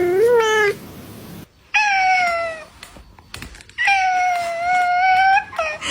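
A domestic cat meowing four times: a short rising meow, a falling meow, a long drawn-out meow and a brief one near the end.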